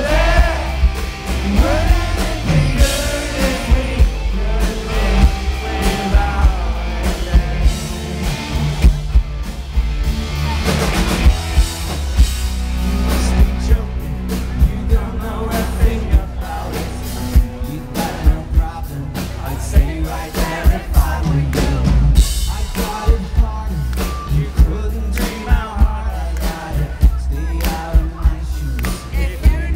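A live pop-rock band playing through a festival PA: drum kit, bass and electric guitar with a male lead vocal in places, heavy in the bass. The recording comes from within the crowd on a small camera.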